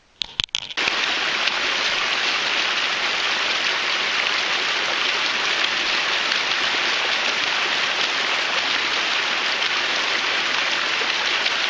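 Small cascade of water splashing steadily over mossy rocks, heard close up. A few short clicks come in the first second before the water starts.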